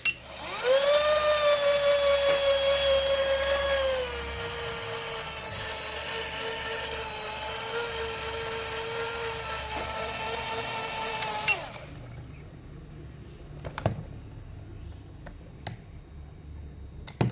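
Small electric motor of a modified spinner helicopter toy spinning up fast to a high, steady whine. Its pitch drops a little about four seconds in, and it cuts off suddenly after about twelve seconds, leaving a few faint clicks.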